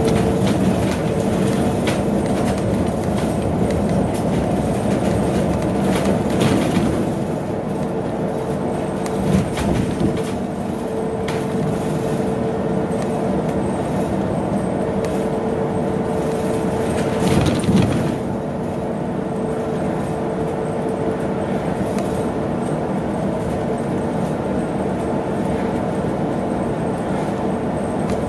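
Cabin noise of a BYD large electric bus under way: steady road and tyre rumble with a faint electric-drive whine that comes and goes, and two brief knocks from bumps in the road.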